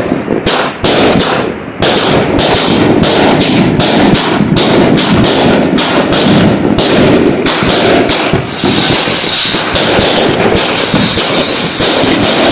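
Multi-shot consumer firework cake firing a rapid, near-continuous barrage of bangs, several a second, with a brief lull near the start.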